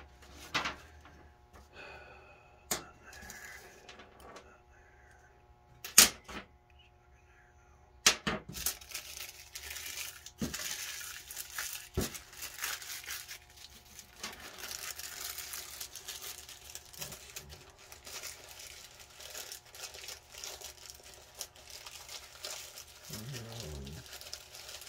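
A few sharp clicks of small parts being handled on a workbench, the loudest about six seconds in. From about eight seconds on comes a continuous crinkling rustle of a plastic parts bag, most likely from the carburetor rebuild kit, being handled.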